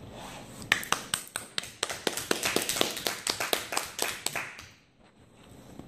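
A few people clapping briefly, a spatter of sharp, irregular claps starting a little under a second in and stopping after about four seconds.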